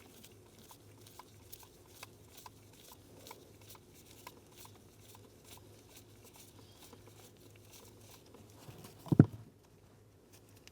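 Light, evenly spaced clicks, about three or four a second, from a ratcheting driver backing out the T15 Torx mounting screw of the ignition switch, followed by a single thump about nine seconds in.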